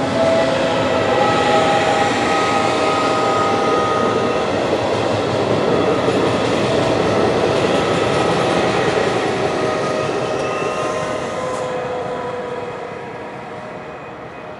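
Regional passenger train of coaches with an E464 electric locomotive passing: a steady rumble of wheels on the rails, with several thin whining tones over it. The noise fades over the last few seconds as the train moves away.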